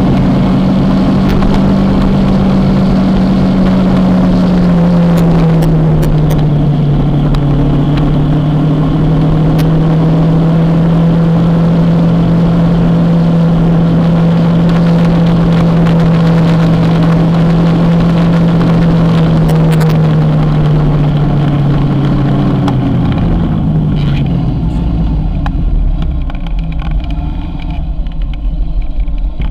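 Kawasaki motorcycle engine running at a steady cruise. Its pitch dips slightly about five seconds in, then falls as the throttle closes and the engine note fades out near the end, leaving a low rumble.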